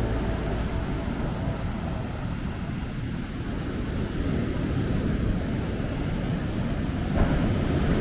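Ocean surf breaking and washing up a sandy beach, with wind rumbling on the microphone. A louder wave wash rises about seven seconds in.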